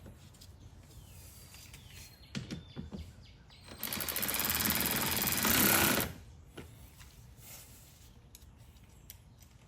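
A power tool, a cordless driver or electric ratchet, runs in one steady rattling burst of about two seconds, snugging a mudflap fastener without fully tightening it. A few light clicks of handling come before it.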